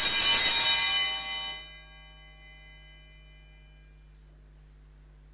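Altar bells shaken at the elevation of the host during the consecration, signalling the moment of consecration. A bright jingling peal lasts about a second and a half, then its ringing fades away over the next two seconds.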